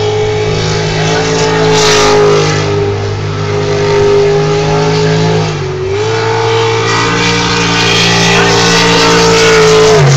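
Jet sprint boat's engine running at high revs. It eases off about five and a half seconds in, then climbs back up and holds.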